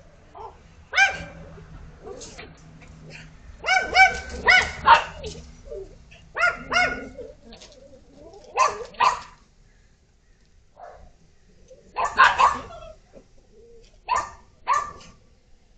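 Small dogs barking: high, sharp barks in clusters of one to four, with pauses of a second or two between clusters.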